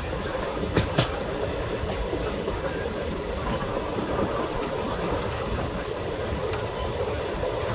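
Steady running rumble of a moving passenger train, the Hussain Sagar Express, heard from an open window of the coach. There are two sharp clicks about a second in.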